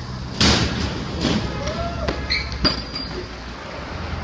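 BMX bike landing hard on a concrete skatepark box, a loud thud about half a second in, followed by a couple of lighter knocks as the tyres bump along the box, over a steady background rumble.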